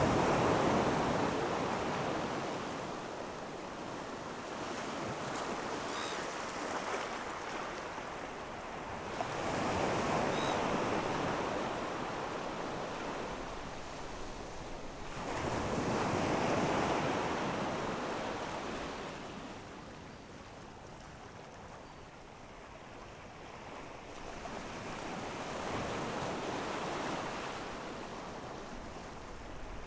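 Sea waves washing onto a sandy, boulder-strewn beach, rising and falling in four slow surges several seconds apart.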